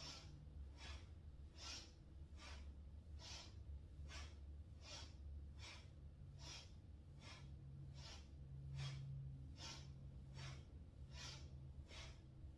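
A woman's faint rhythmic breathing: quick, hissing inhales and exhales, one about every 0.8 seconds, paced to side-to-side spinal twists in a kundalini breathing exercise.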